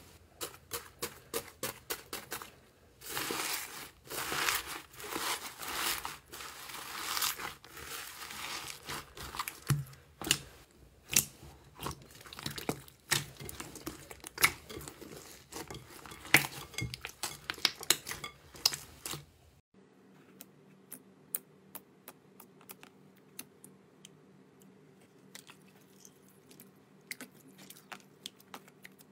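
Hands pressing and kneading floam slime, foam beads packed in sticky slime: dense crackling and crunching of the beads with squishy stretches. About 20 seconds in it changes abruptly to much quieter, sparse little pops and squishes of a hand poking clear slime in a plastic tub.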